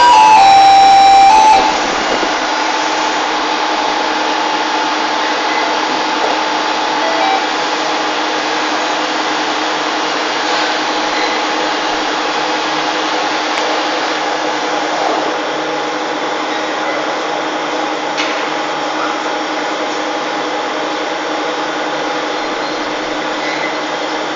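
CNC EDM machine running steadily while eroding a thread into tungsten carbide: an even mechanical hum with a few steady tones. Louder music cuts off about a second and a half in.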